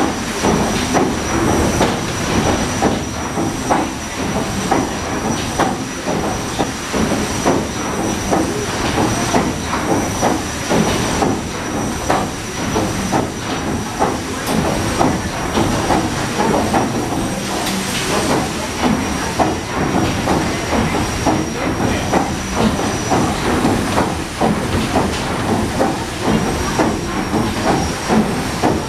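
PS Waverley's triple-expansion steam engine running under way, a rhythmic beat of strokes over a steady hiss, with a thin high whine held throughout.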